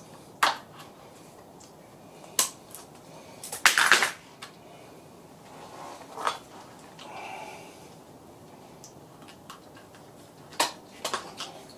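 Scattered metallic clinks and knocks of hand tools against engine parts as ancillaries are unbolted from a Ford 1.0 EcoBoost engine. A denser clatter comes about four seconds in, and a few more knocks near the end.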